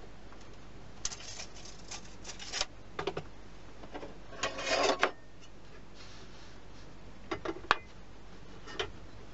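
Hand woodworking tools on wood: a few short scraping strokes, one longer rasping stroke about four and a half seconds in, then several sharp knocks near the end.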